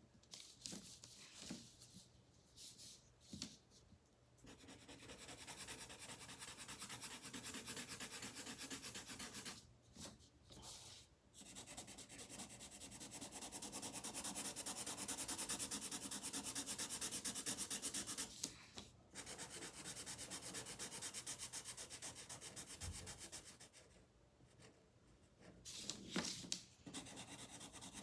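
Marker coloring on paper: rapid back-and-forth scribbling strokes, in stretches of several seconds broken by a few brief pauses.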